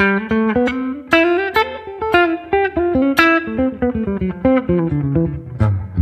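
Electric guitar with f-hole body and humbucking pickups played in a swung jazz line, picked mostly on upstrokes near the neck pickup. Quick single notes and short chord stabs come several a second, the melody moving up and down.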